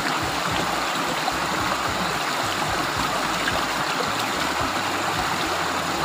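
Small waterfall pouring over a low ledge into a shallow stream pool, a steady rush and splash of water.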